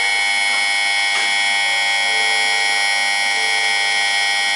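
Shinkansen platform departure bell: an electronic buzzer ringing loud and unbroken on several steady pitches, the signal that the train's doors are about to close.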